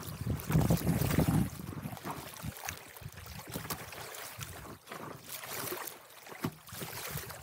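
Choppy water sloshing and splashing against a stand-up paddleboard as it is paddled along, with irregular splashes from the paddle and waves. A louder low buffeting of wind on the microphone in the first second and a half.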